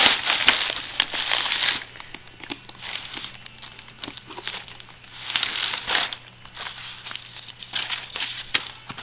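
Rustling and crinkling of packaging with small clicks and knocks as gear is handled, in irregular bursts, loudest at the start and again about five to six seconds in.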